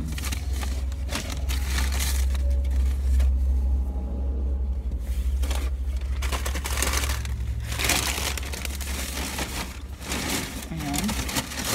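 Takeout food packaging, paper and plastic, crinkling and rustling in bursts as it is handled and packed away, over a steady low hum.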